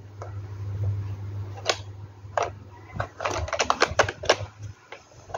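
Hard plastic clicking and knocking from a Mattel dinosaur toy track playset being handled: its red lever and hinged lid are moved by hand, with a few single clicks and then a quick run of clicks about three seconds in. A steady low hum underlies most of it and stops near the end.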